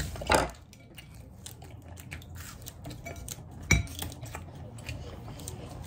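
Tableware and a plastic water bottle being handled on a table. There is a short louder rustle just after the start, then scattered small clicks, and one sharp knock about three and a half seconds in, the loudest sound.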